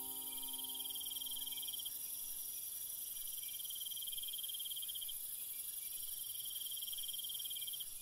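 Insects chirping in long, pulsing, high-pitched trills of a couple of seconds each with short breaks, over a steady, very high insect drone. A held chord of background music fades out in the first two seconds or so.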